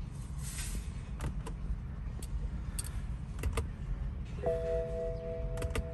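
A scatter of light clicks and taps from controls and keys inside a 2010 BMW 535i's cabin, over a low steady hum. About two-thirds of the way in, a steady electronic warning tone from the dashboard starts and holds while the car shows its check-control warnings without starting.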